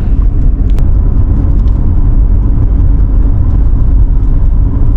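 Steady low rumble of a car's engine and tyres heard from inside the cabin while driving slowly in traffic, with a single click just under a second in.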